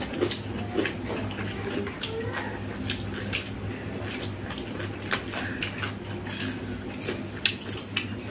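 Wet eating sounds: fingers squishing rice and omelette curry on plates, and mouths smacking while chewing, heard as many soft irregular clicks over a steady low hum.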